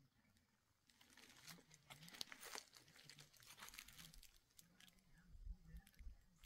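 Faint crunching and crackling of dry leaves and twigs, as scattered small clicks through the first half, with a low rumble coming in near the end.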